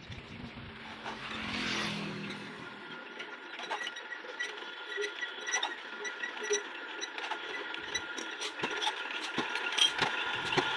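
Old stationary diesel engine with a heavy flywheel being hand-cranked for a cold start: a run of mechanical clicks and knocks over a faint hum, coming faster and louder near the end as the engine begins to fire.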